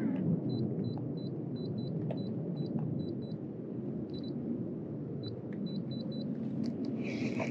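Steady low wind and water noise on a small open boat, with a run of faint, short, high beeps, about two or three a second, through most of it. Near the end a brighter hiss with a high steady tone comes in.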